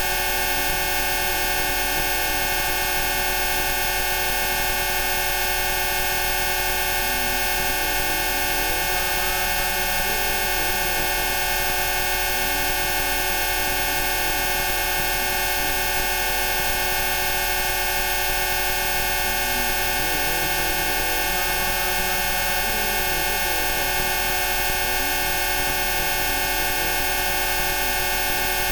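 A dense chord of steady electronic sine tones, Rife frequencies, spread from low to very high pitch and holding without change. Faint gliding tones waver softly beneath them.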